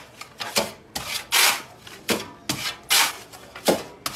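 A shovel blade scraped across a sandy floor in repeated short strokes, about two a second, played as a makeshift percussion beat.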